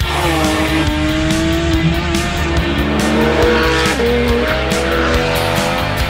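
Porsche GT car's flat-six engine revving hard under acceleration. Its pitch climbs steadily, then drops at an upshift about four seconds in. Background music with a steady beat plays underneath.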